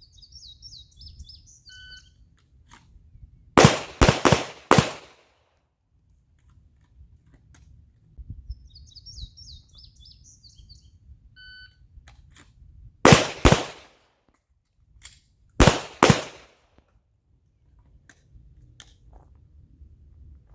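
A shot timer beeps, and about two seconds later a handgun fires four quick shots within about a second. A second beep comes near the middle, followed by two pairs of shots a couple of seconds apart. Faint high chirping is heard just before each beep.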